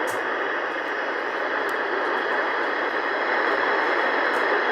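Radio static: a steady hiss from a weather radio receiver picking up no broadcast audio.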